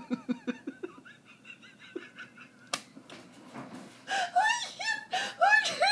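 A woman laughing at her own story: quick breathy, wheezy laughter at first, trailing off to faint high squeaks, then rising again into louder rhythmic laughter about four seconds in. A single sharp click about three seconds in.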